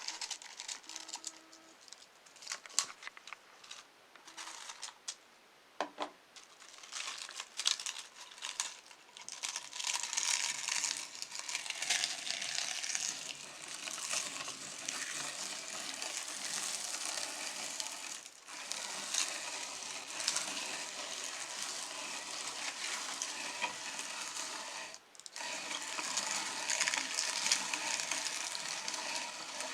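Potato chips crinkling and crackling in scattered snaps, then, from about nine seconds in, a meat grinder crushing them in a dense, continuous crunching that breaks off briefly twice.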